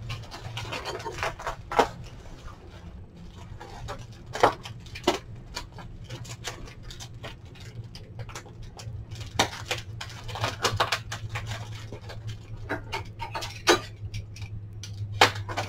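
Plastic bag and bubble wrap crinkling and crackling irregularly as hands unwrap small china pieces, over a steady low hum.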